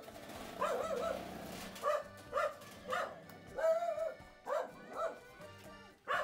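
A dog giving short whining yips again and again in an excited greeting, each cry bending up and down in pitch, over background music.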